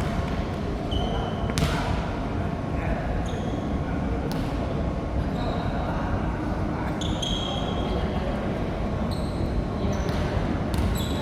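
Busy indoor din: scattered sharp thuds and short high squeaks over a steady murmur of voices.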